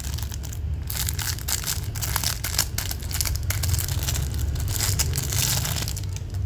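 Packaging crinkling and rustling in dense, irregular crackles as a boxed Zippo lighter's wrapping is handled and opened.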